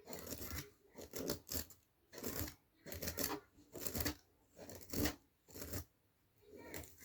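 Comb pulled repeatedly through a Barbie doll's long, matted synthetic hair to work out the tangles, about eight strokes roughly a second apart.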